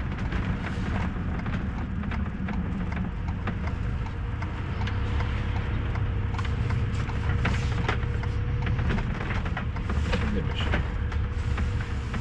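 Motorhome driving slowly, heard from inside the cab: a steady low engine and road rumble with many small clicks and rattles, and a faint steady whine that sets in about five seconds in.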